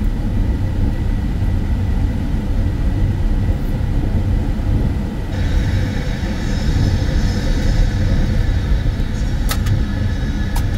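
Car driving at autobahn speed, heard from inside the cabin: a steady low rumble of engine and road noise. A fainter high hiss joins about halfway through, and a couple of sharp clicks come near the end.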